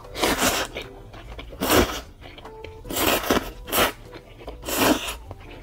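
A person slurping instant ramen noodles in five separate noisy slurps, roughly a second apart.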